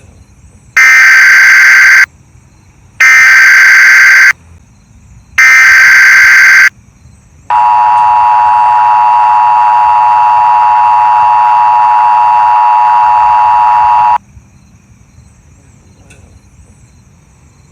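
Emergency Alert System broadcast tones: three loud, identical data bursts of a little over a second each (the SAME header), then a steady two-tone attention signal that holds for about seven seconds and cuts off suddenly.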